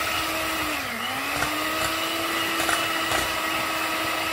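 Electric hand mixer running steadily, its twin beaters whisking eggs in a glass bowl. The motor's pitch dips briefly about a second in, then comes back up.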